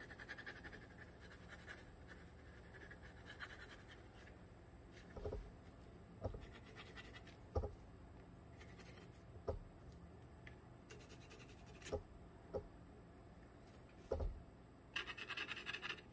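A drawing tool scratching across tree bark in short strokes as a gnome outline is sketched, the longest and loudest stroke near the end. Several short soft knocks come in between, about eight of them, spread through the middle.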